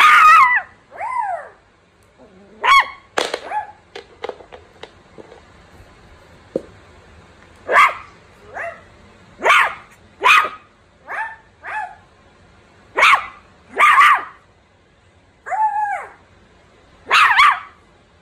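Poodle puppy giving a string of short, high-pitched barks and yips, about a dozen in all, a few of them drawn out and falling in pitch like a whine.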